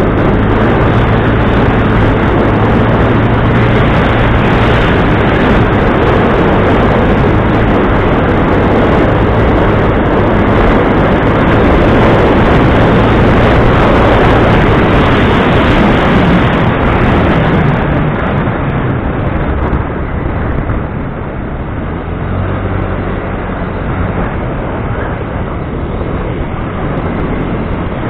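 An engine running steadily, its low hum under loud rushing noise that eases off slightly about two-thirds of the way through.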